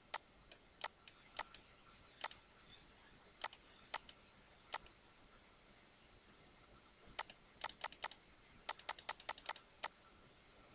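Computer mouse clicking: single clicks spaced out at first, then a quick run of about a dozen clicks near the end.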